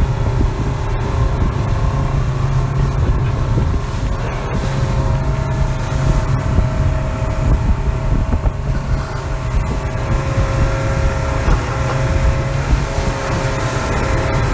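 Motorboat engine running steadily with a constant drone, with wind buffeting the microphone.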